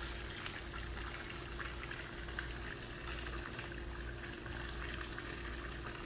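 Microwave oven running with a steady hum and a faint continuous sizzling hiss from the iPhone 6 cooking inside it.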